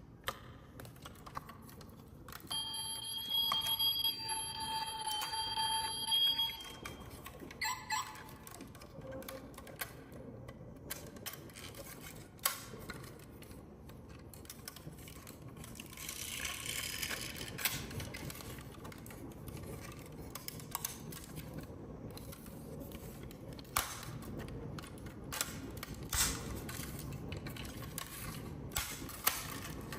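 Marbles rolling down a wooden marble run, a steady low rumble broken by many sharp clicks and clacks as they strike the track. A few seconds in, a high ringing tone holds for about four seconds and then stops.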